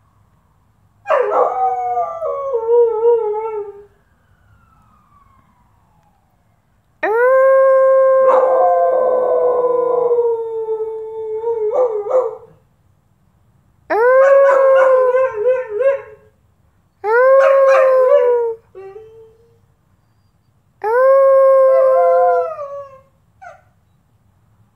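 Dog howling: five long drawn-out howls with short pauses between them, the second the longest at about five seconds.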